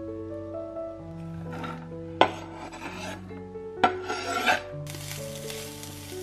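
Soft music with sustained notes, over which come three short rasping scrapes, the second starting with a sharp click. A steady hiss follows near the end.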